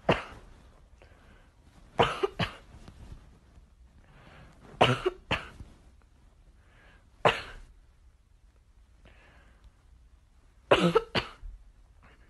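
A person coughing: loud, short coughs in clusters of one to three, repeated every couple of seconds.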